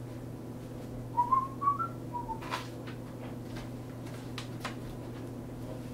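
A person whistling a short run of notes about a second in, stepping up in pitch and then back down, over a steady low electrical hum. A sharp click follows, then a few fainter ticks.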